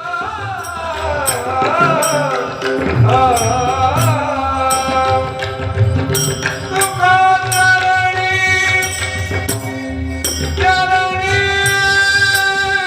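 Devotional bhajan music: a voice sings a wavering, ornamented line in the first few seconds, then long steady notes take over from about halfway through, while regular percussion strikes keep the beat.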